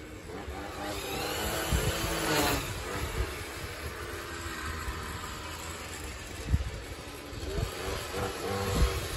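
Small gas engine of lawn equipment revving up about a second in, then running steadily, its pitch rising again near the end.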